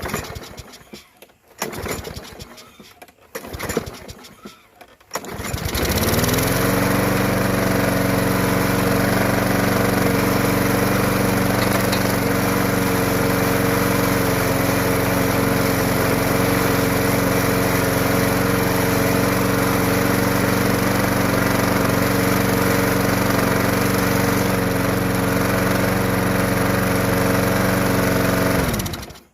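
Briggs & Stratton 190cc single-cylinder engine on a Yard Machines push mower pulled over several times. It catches about five seconds in and runs steadily, then cuts off suddenly near the end.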